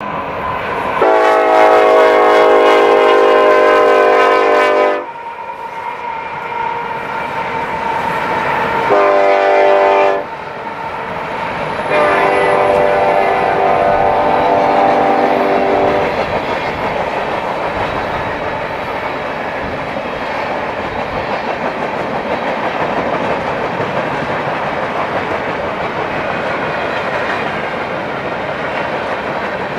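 Union Pacific freight locomotive's air horn sounding a long blast, a short blast and then a fainter long blast, over the steady rumble and clatter of freight cars rolling past on the rails. After the third blast only the rolling cars are heard.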